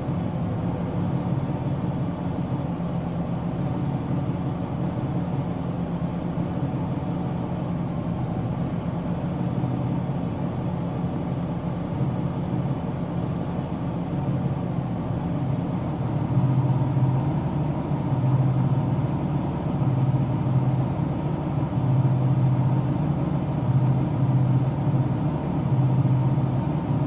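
Car engine and road noise heard from inside the cabin: a steady low drone. About two-thirds of the way through, the engine hum grows louder and swells unevenly.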